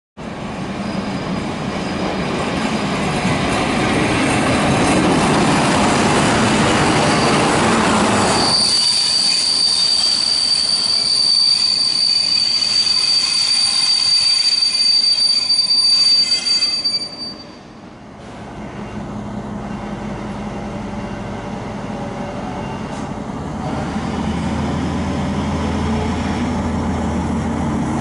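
ÖBB class 2143 diesel-hydraulic locomotive: first a loud rumbling run on the rails. Then a long, steady, high-pitched wheel squeal that lasts several seconds. Near the end, its diesel engine note rises in pitch as it speeds up.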